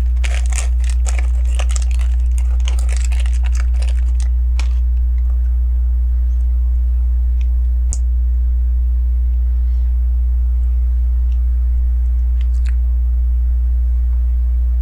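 Small plastic LEGO bricks clicking and rattling as they are handled and pressed together: a quick flurry of clicks over the first few seconds, then a few scattered clicks, one of them sharp about eight seconds in. A steady low electrical hum runs underneath and is the loudest sound.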